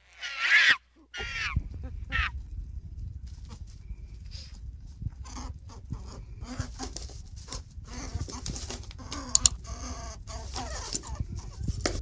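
Rabbit chewing leafy greens close to the microphone: a steady run of small crunching clicks over a low rumble. A short, loud, high call with bending pitch opens the sound, with two briefer calls soon after.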